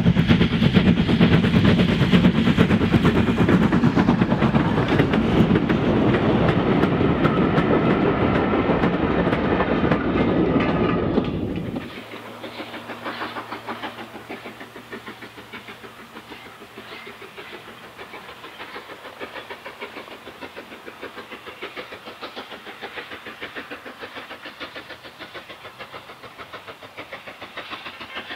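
Steam train running, a loud, dense, rapidly pulsing mix of exhaust beats and wheel noise, which cuts off abruptly about twelve seconds in and gives way to a much quieter rhythmic sound.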